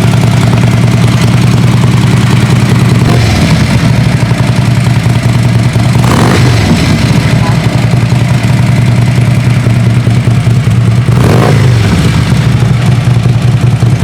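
Harley-Davidson 103 Twin Cam V-twin running through a Bassini header with a Max-Cell T904A cam, idling with a steady lopey beat and blipped up and back down three times.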